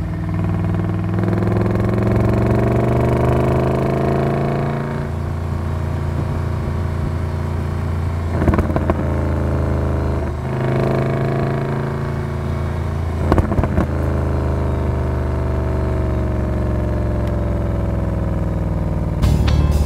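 Mercedes-Benz SLS AMG's naturally aspirated 6.2-litre V8 heard through the exhaust at the rear bumper. It accelerates with a rising pitch, drops as it shifts up about five seconds in, then pulls and eases off again with a falling pitch. Short bursts of popping from back pressure come twice in the middle.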